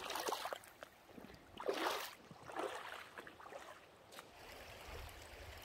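Boots splashing through a shallow, pebbly creek: three wading steps about a second apart.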